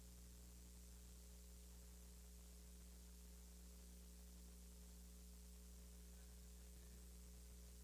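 Near silence with a steady low electrical hum and faint hiss from the sound system.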